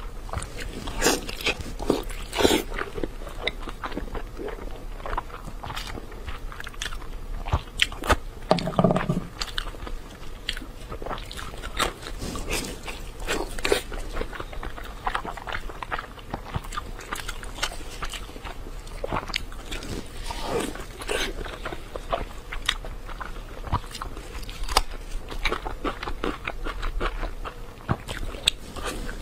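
Close-up eating sounds: a person biting and chewing a large piece of braised meat in red sauce, with many short mouth clicks and smacks, and one fuller, longer mouth sound about nine seconds in.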